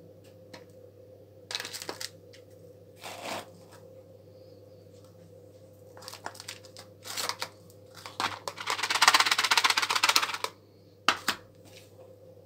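Handfuls of peat and washed river-sand potting mix scooped by hand and dropped into a small plastic box: gritty rustling of soil grains in several short spells, the longest and loudest from about nine to ten and a half seconds in, with a light click about a second later.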